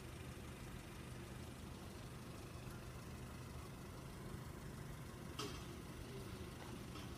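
An engine idling with a faint, steady low hum. A brief sharp sound comes about five and a half seconds in.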